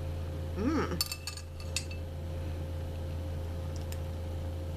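A spoon clinking a few times against the soup container about a second in, with a couple of faint ticks later, over a steady low hum.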